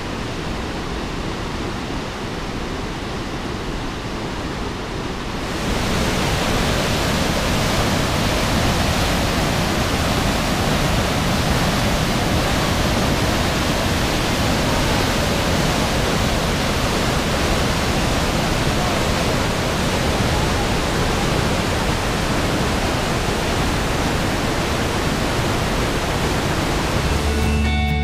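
Waterfall's whitewater pouring through a narrow rock gorge: a steady rushing noise that grows louder and fuller about five and a half seconds in. Guitar music comes in at the very end.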